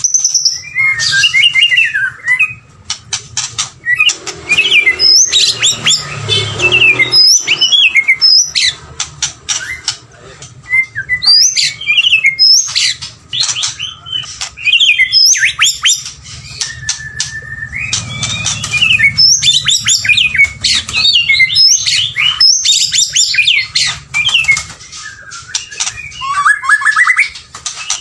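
White-rumped shama singing a loud, varied song of rich whistles, fast sweeping phrases and sharp clicking notes, with one long held whistle about halfway through.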